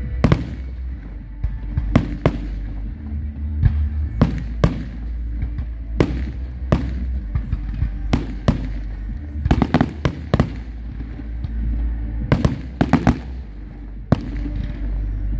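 Fireworks bursting: a string of sharp bangs at irregular intervals, some coming in quick clusters of two or three, over a steady low rumble.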